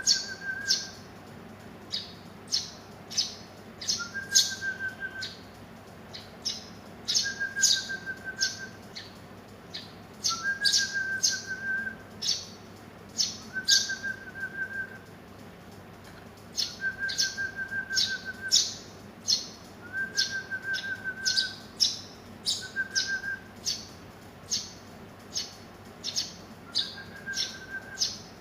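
Young Eurasian tree sparrows (burung gereja) chirping: clusters of short, high chirps in quick runs, with a short trill at a lower pitch about every three seconds.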